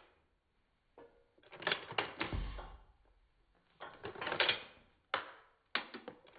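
Umarex Legends Cowboy Rifle's underlever action being worked, giving groups of sharp metallic clacks as the lever is swung open and shut. Each stroke throws out a brass shell and lifts the next one into place.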